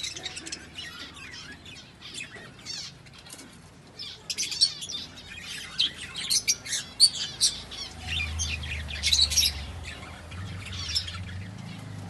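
A flock of budgerigars chattering, with many short, quick chirps and squawks that grow busier a few seconds in. A low hum joins about two thirds of the way through.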